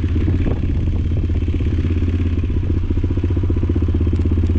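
Motorcycle engine running steadily with an even, rapid firing pulse.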